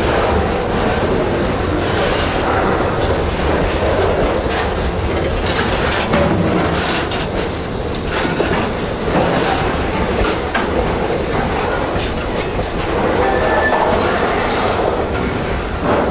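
Freight train's container wagons rolling steadily past at close range, wheels clicking over rail joints, with a brief thin squeal near the end.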